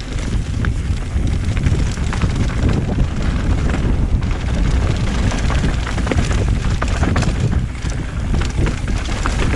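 Mountain bike riding downhill on a dirt trail: wind buffets the microphone over a steady low rumble of the tyres, with frequent short rattles and knocks from the bike.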